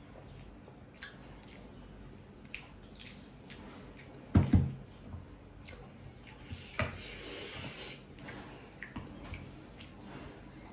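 Close-up eating sounds: small wet mouth clicks, then a loud double knock about four seconds in as the wooden bowl is pulled across the table. After that a metal spoon scoops through chilli gravy in the wooden bowl, with about a second of wet, splashy noise.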